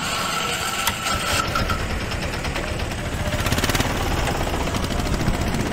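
An engine running steadily with a fast, even beat, and a thin steady whine over it for about the first second and a half.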